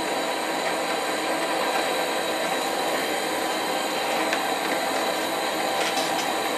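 Propane hand torch serving as the burner of a five-brick firebrick forge, its flame burning into the chamber with a steady rushing hiss.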